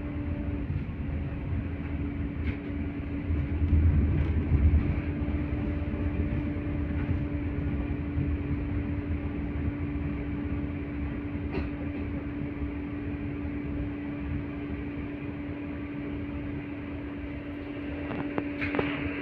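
Inside an LVS-86 articulated tram in motion: a steady rumble of the wheels and running gear with a constant hum over it. The rumble swells for a second or so a few seconds in, with a few sharp clicks and rattles along the way and a brief clatter near the end.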